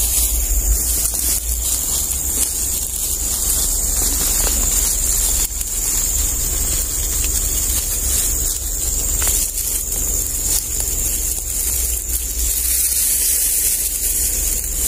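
Steady loud hiss with a few brief scrapes, as fern fronds brush against clothing, boots and hands while someone pushes through a dense fern thicket.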